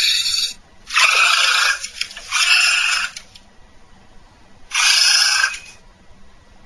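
Made-up giant moa call sound effect: a series of harsh, breathy screeching calls, each about a second long, with short quiet gaps between them.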